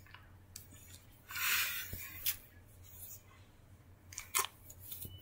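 Plush toys being handled and moved about: soft fabric rustling, with a louder brushing swish about a second in and a few small knocks.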